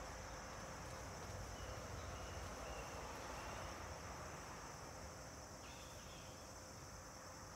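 Steady high-pitched insect drone, with a series of short faint chirps in the first half and again near the end.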